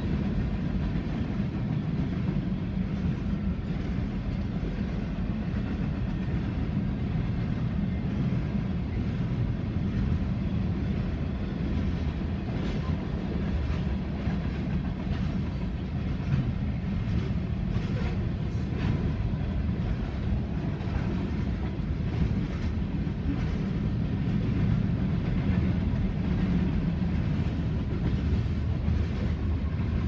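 Freight train cars rolling past over a grade crossing: a steady rumble of steel wheels on the rails, with scattered sharp clicks and clacks of wheels over the rail joints, most of them in the middle stretch.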